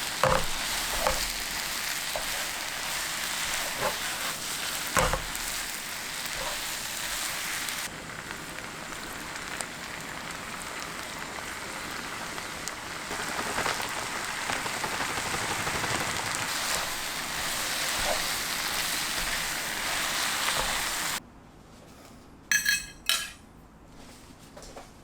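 Food sizzling in a hot frying pan as it is stir-fried, with occasional clicks of the utensil against the pan. The sizzling stops abruptly about 21 seconds in, followed by a couple of short knocks.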